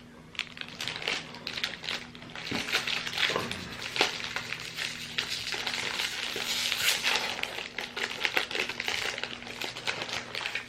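Plastic wrapper of a pack of toffee-filled chocolate biscuits being opened and handled, crinkling and crackling throughout and busiest in the middle, over a faint steady low hum.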